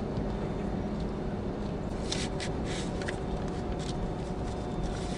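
Steady low hum inside a stopped car's cabin. About two seconds in comes a run of short swishing strokes, a cloth rag wiping over the car's lights and glass.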